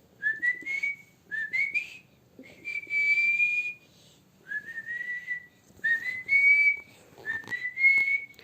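A person whistling by mouth: six short notes with pauses between, each sliding upward and then levelling off, the third held longest.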